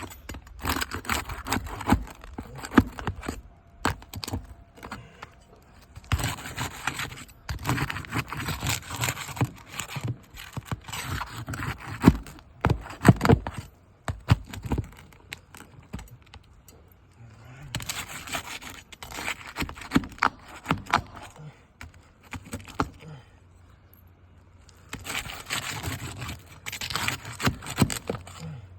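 A pry tool scraping and clicking under roof shingles in about four bursts of several seconds, working the damaged shingle loose so it can be pulled out.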